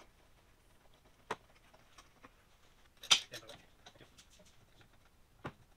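Three sharp clicks about two seconds apart, the middle one loudest, with faint ticks between: a hand tool working on a stripped screw.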